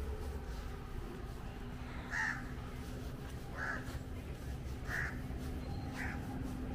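A bird calling four times, short rough calls a little over a second apart, over a steady low street background.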